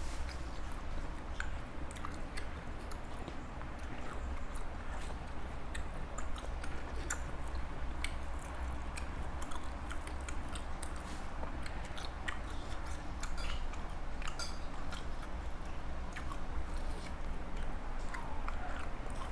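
A person chewing food close to the microphone, with many small crisp, crunchy clicks, over a steady low hum.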